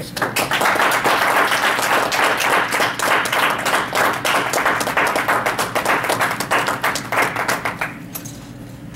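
A small audience applauding: a dense patter of hand claps that starts right away and dies down about eight seconds in.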